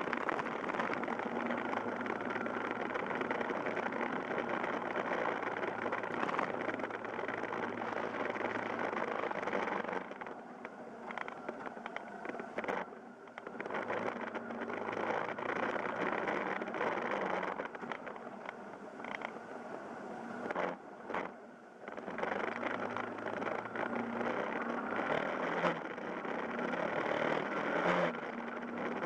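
Yamaha Fazer YS250's single-cylinder engine running as the motorcycle rides along, mixed with road and wind noise. About ten seconds in it falls quieter and uneven for roughly twelve seconds while the bike slows through a turn, then rises again as it pulls away.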